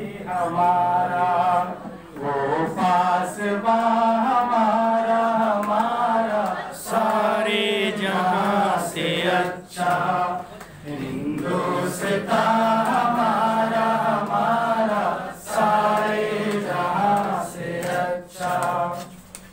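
A man singing unaccompanied, in long held lines with short pauses between them.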